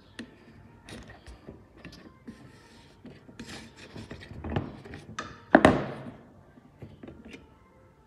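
Hard plastic parts of a Beko washing machine door's handle and latch assembly being handled and fitted: scattered small clicks, knocks and rubbing, with one loud plastic clack about five and a half seconds in.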